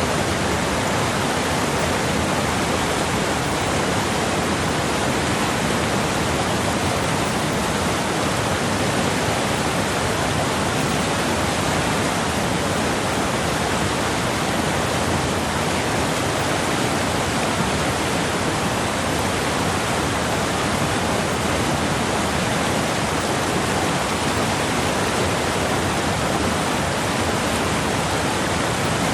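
Steady, even rushing noise that does not change and has no distinct sounds within it.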